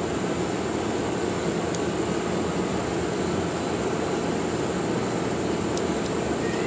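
Steady, even background drone of a running machine, with a few faint light clicks as small revolver parts are handled: one about two seconds in and two close together near the end.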